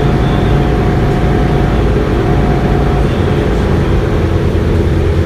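Mercedes-Benz Citaro city bus heard from inside its cabin: a steady drone of engine and drivetrain, with a thin whine that stops about three seconds in.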